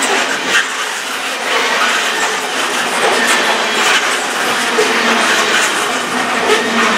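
Coal cars of a Canadian Pacific coal train rolling past close by: a steady rattle and rush of steel wheels on the rails, with irregular clacks.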